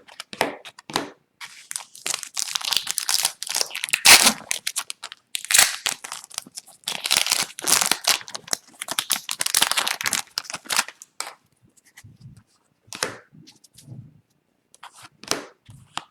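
Crinkling and tearing of a trading card pack's foil wrapper as it is ripped open. After that come a few lighter ticks and shuffles of cards being handled.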